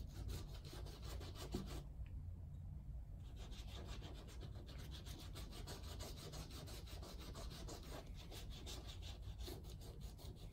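Huberd's shoe grease being rubbed into a leather Timberland hiking boot in quick, repeated strokes, a soft scrubbing rub with a brief lull about two seconds in.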